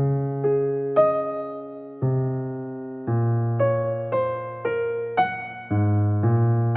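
Soft background piano music, slow notes and chords struck about every half second and each left to fade.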